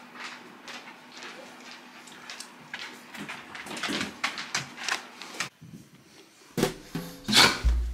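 Scattered light clicks and taps from a Saint Bernard's claws on a wooden floor as it shifts about by its bowl, over a faint steady hum. A short quiet gap comes near the end, then a couple of louder knocks.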